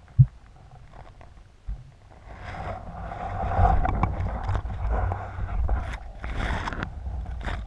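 Dull knock against an underwater camera, then water rushing and rustling over the housing as the spearfisher swims and brushes through seaweed, with a low rumble and scattered crackles.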